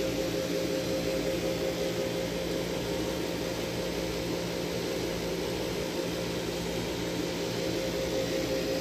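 A steady machine hum with a constant mid-pitched tone over an even hiss.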